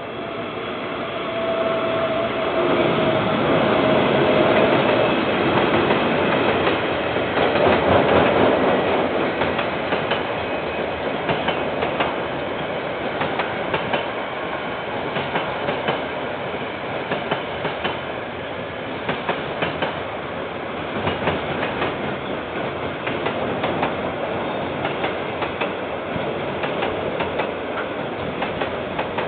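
A KiwiRail train passing at close range. The locomotive's engine grows louder over the first few seconds, with a steady tone that drifts slightly down as it goes by. A long string of wagons then rolls past, their wheels clicking in a steady rhythm over the rail joints.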